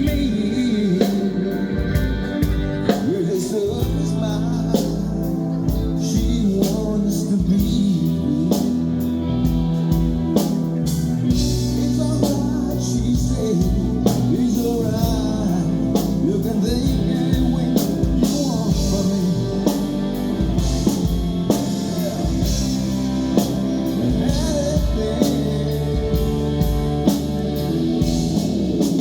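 Live rock band playing: electric guitar over bass and a drum kit keeping a steady beat.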